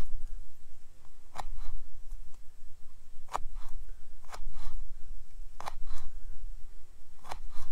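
Knife chopping garlic cloves: slow, single cuts about one to two seconds apart. Each cut is a sharp knock followed by a softer tap.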